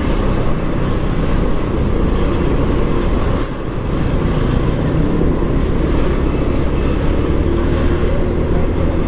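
Motor scooter riding slowly in dense traffic: a steady low rumble of engine, tyre and traffic noise.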